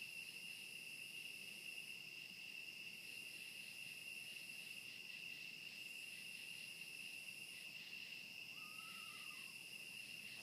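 Night-time insect chorus: a steady high-pitched trill throughout, with a higher buzzing layer that comes and goes in stretches of about two seconds. About nine seconds in, a faint brief call rises and falls once.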